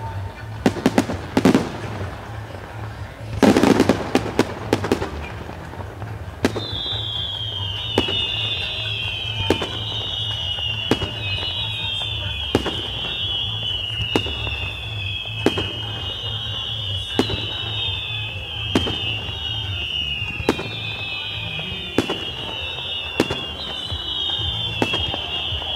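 Aerial fireworks display: a run of sharp bangs with dense crackling bursts about a second in and again from about 3 to 5 seconds. From about 7 seconds a continuous string of high, falling whistles repeats roughly every second and a half, with single bangs going off among them.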